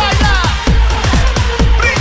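Background electronic dance music with a fast, steady drum beat and sliding high melodic lines.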